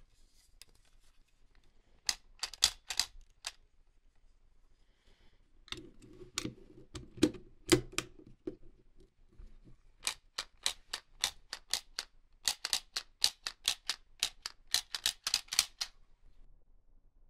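Runs of sharp, quick clicks, several a second, like a plastic toy being clicked and handled. A low steady hum sounds under the clicks in the middle.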